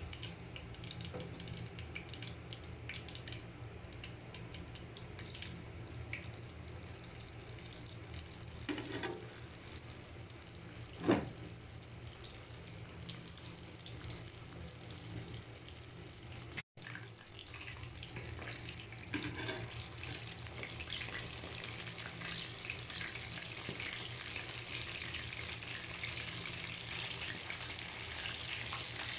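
Chicken wings frying in oil in a pan: a steady crackling sizzle over a low hum, growing denser and brighter in the second half. There is one short clack about a third of the way in.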